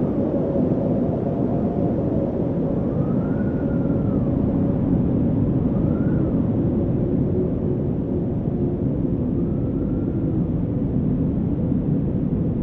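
Wind blowing steadily, a dense low rumble with faint whistling tones that rise and fall three or four times.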